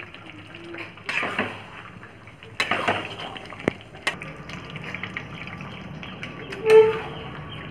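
A spatula stirring a wet, cashew-thickened curry gravy in a pan, with irregular scrapes and knocks of the utensil against the pan. A brief pitched tone sounds near the end.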